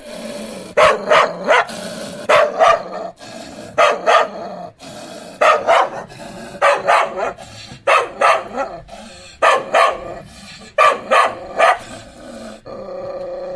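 Dog barking repeatedly, in quick groups of two or three barks about every one and a half seconds. A steady, drawn-out sound takes over near the end.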